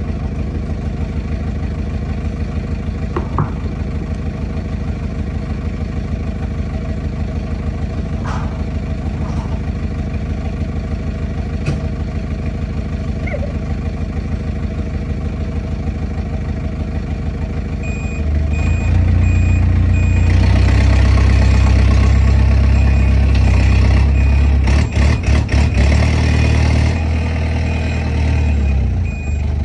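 A heavy vehicle's engine idling steadily, then revving up about two-thirds of the way in while a reversing alarm beeps at a steady pulse.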